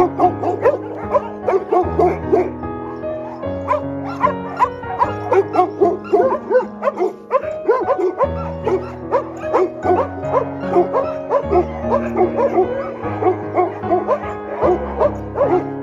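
Background music with a steady bass line, over many dogs yipping and whining in short rapid cries.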